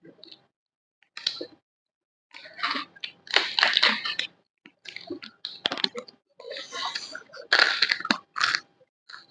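Crunchy food being bitten and chewed close to the microphone, in irregular crackling crunches with short pauses between bites.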